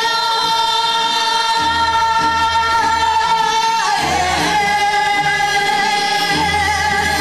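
Korean folk song (minyo) sung into a microphone by a woman, with a group of voices joining in, over instrumental accompaniment with a recurring bass line. A long note is held for about four seconds, then the melody moves to a slightly lower note sung with vibrato.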